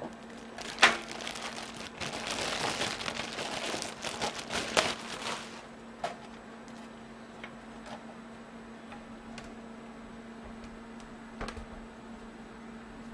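Crinkling of plastic packaging as a new computer power supply and its cable are handled, for about three seconds, after a sharp knock about a second in. Scattered small clicks and taps follow.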